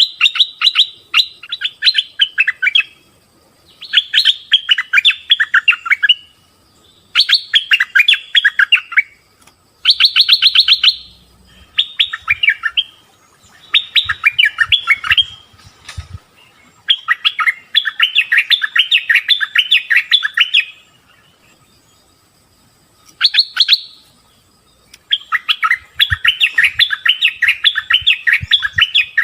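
Bulbul (merbah) calls: bursts of rapid chattering notes, each one to three seconds long, repeated with short pauses between.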